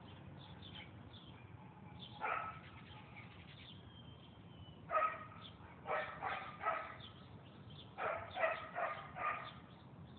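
A dog barking: a single bark, then a quick run of four barks and, after a short pause, another run of four. Birds chirp faintly in the background.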